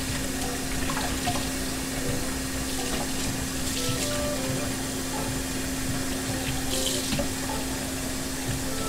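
Tap water running steadily into a stainless steel sink, pouring over a puppy held in a small basin and spilling over its rim, with a steady low hum underneath.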